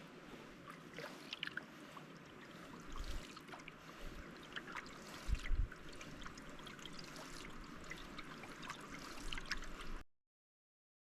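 Water trickling and dripping with small splashes, as from canoe paddle strokes, with a couple of low thumps about five seconds in. The sound cuts off suddenly near the end.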